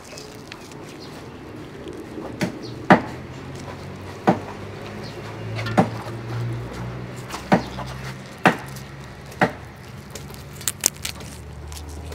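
Sharp knocks or clicks, nine or so at irregular intervals about a second apart, over a low steady hum that swells in the middle.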